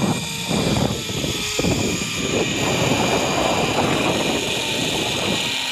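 Rushing wind buffeting the microphone during a zipline ride, with the trolley running along the steel cable. The gusty buffeting eases about two seconds in and then holds steady.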